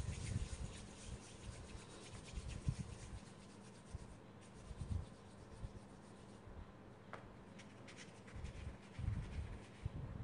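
Faint soft rubbing of a lump of clay being rolled between the palms, with a few dull low bumps.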